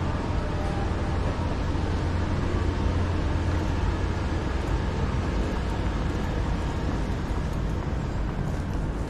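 Steady city street ambience at night: a constant low rumble under an even wash of background noise.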